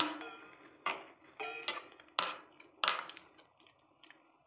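Hand mixing wet besan batter in a metal bowl. Five irregular sharp knocks from fingers striking the bowl come in the first three seconds, then it quietens.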